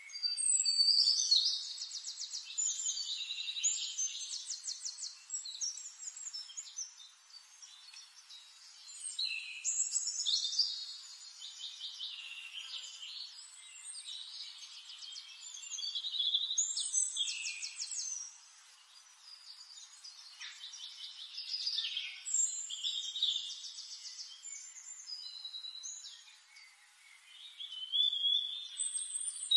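A songbird singing: short phrases of high, fast trills and chirps, repeated about every five to seven seconds.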